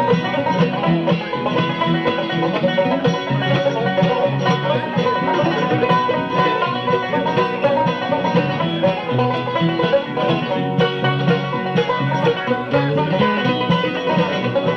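Bluegrass band playing an instrumental intro, banjo to the fore, over guitar, fiddle and a walking bass line.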